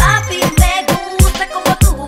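Urban Latin music track with a steady, punchy kick drum and a deep bass note sliding downward right at the start.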